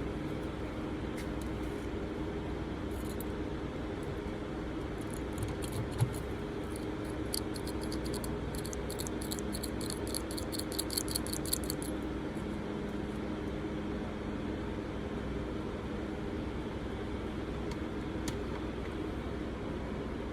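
Small metal parts of a vintage lighter being handled over a steady room hum: one knock about six seconds in, then a rapid run of light metallic clicks for several seconds in the middle.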